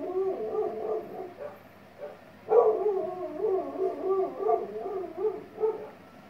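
A dog whining in long, wavering cries, in two stretches with a short break about two seconds in.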